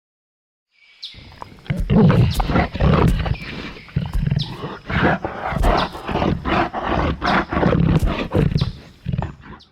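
Dinosaur roar sound effect: a string of loud, deep roars and growls that starts about a second in and cuts off suddenly near the end.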